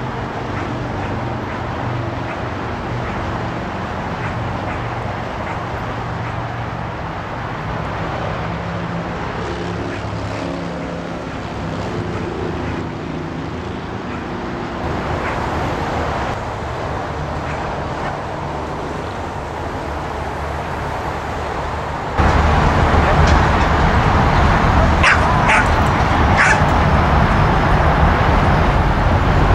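Steady background traffic hum, louder after about 22 seconds, with a dog giving a few short barks about three-quarters of the way through.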